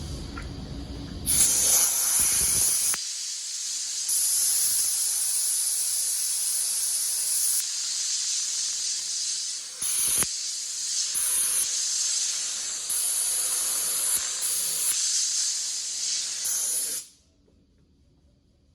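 Loud high-pitched hissing spray in several long bursts a few seconds each, with short pauses between, cutting off abruptly near the end.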